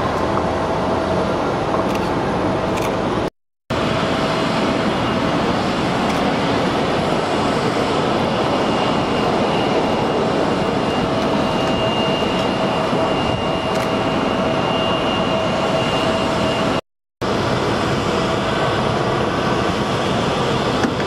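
Steady airport apron noise: a continuous jet-type rumble with a thin steady whine over it. The sound cuts out abruptly twice for a fraction of a second.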